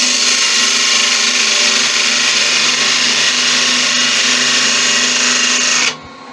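Narrow parting tool cutting a groove into spalted beech spinning on a wood lathe: a loud, steady hiss of the cut over the lathe's hum, stopping abruptly about six seconds in.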